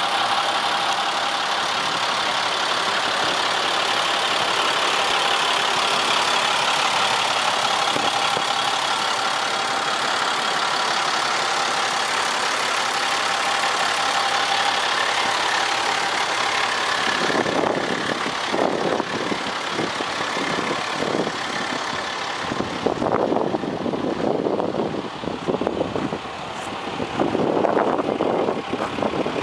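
Utility bucket truck's engine idling steadily. Past the halfway point irregular louder bursts break in over it.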